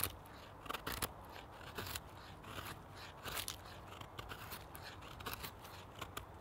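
Knife blade shaving thin curls down a wooden stick to make a feather stick: a string of short, dry scraping strokes, irregular, roughly one or two a second.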